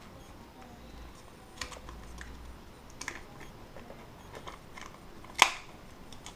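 Plastic clamshell pack of a laptop memory module being pried open by hand: scattered small plastic clicks and crackles, with one loud snap about five and a half seconds in.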